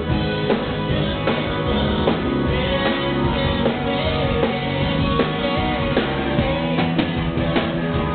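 Live rock band playing with electric guitars, keyboard and drum kit, at a steady dance beat.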